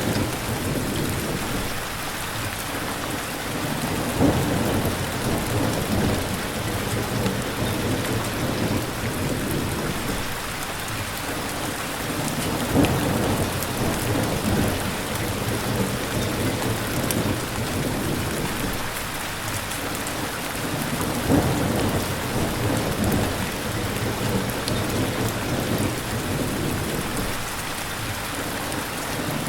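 Steady rain falling, with low rumbles of thunder swelling up roughly every eight or nine seconds, three times.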